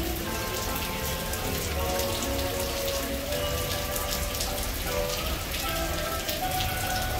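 Steady rain falling and pattering on flooded pavement, with faint music of held notes underneath.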